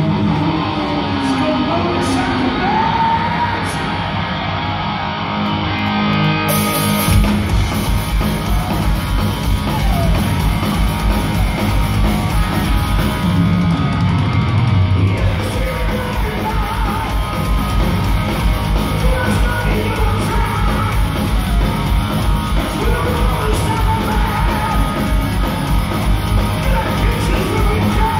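Heavy metal band playing live in a large hall, with yelled vocals and distorted guitars. About seven seconds in, the full band comes in with a fast, pounding drum beat.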